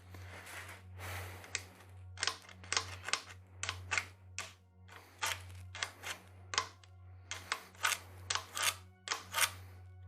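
Irregular metallic clicks and clinks, roughly two or three a second, as hydraulic lifters are pulled out of a Chevy 350 small-block's lifter bores with a magnet and handled.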